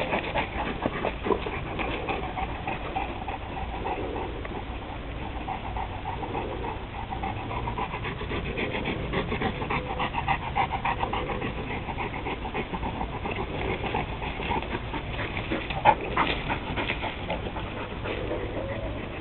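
A dog panting, with two sharp knocks close together near the end.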